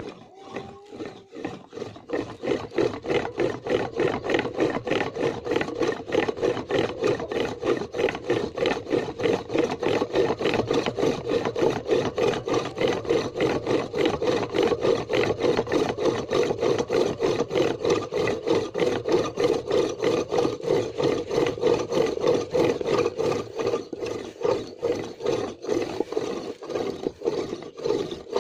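Homemade pump drill with a wooden flywheel, its bit grinding into a hard steel planer blade. A fast, rhythmic rasping scrape rises with each pump stroke of the crossbar. It builds up about two seconds in and then runs on steadily.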